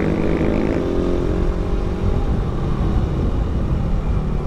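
Motorcycle engine running under way, heard from the rider's camera with wind rumble on the microphone. The engine's steady note is clear for the first second or so, then sinks into the wind and road noise.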